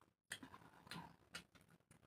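Close-miked eating sounds: a few short wet smacks and clicks from chewing and from fingers mixing rice with egg curry, after a brief drop to silence at the start.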